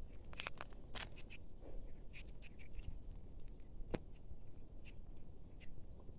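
Scattered faint clicks and crackles over a low rumble, with a cluster around the first second, a run of small ticks between two and three seconds in, and one sharp tick about four seconds in.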